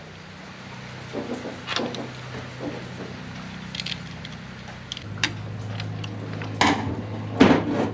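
Scattered small clicks and knocks of metal parts being handled and fitted as a drive-by-wire throttle body is put back together, the loudest two near the end, over a steady low hum that gets louder about halfway through.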